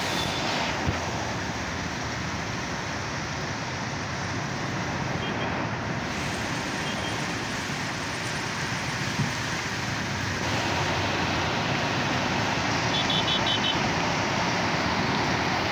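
Heavy rain pouring down steadily, a dense even hiss that gets a little louder about ten seconds in.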